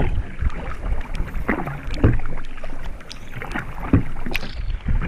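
Solo canoe being paddled through choppy water: a wooden paddle's strokes splashing, with water lapping and slapping against the hull, and a low wind rumble on the microphone.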